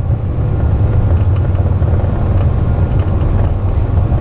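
Airbus A340 accelerating down the runway on its takeoff roll, heard from the cockpit: a loud, steady low rumble of the engines at takeoff thrust and the wheels rolling, with a few faint clicks.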